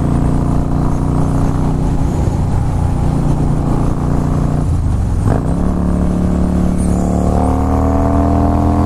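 Harley-Davidson Fat Boy S V-twin engine running steadily at cruising speed. About five seconds in, the engine note dips briefly, then climbs steadily as the bike accelerates.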